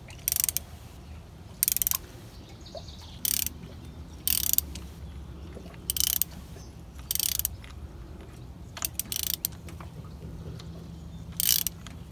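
Socket ratchet clicking in short bursts about every second and a half, as it is worked back and forth to unscrew a thread tap from a freshly rethreaded spark-plug hole.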